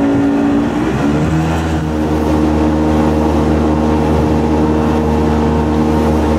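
A boat's outboard motor running under way, a steady droning hum. About a second in its pitch slides down, then holds steady at the lower pitch.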